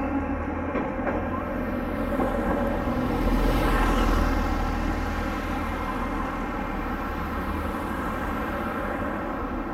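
Street traffic, with a bus's engine rumbling steadily as it passes close by, loudest about three to four seconds in.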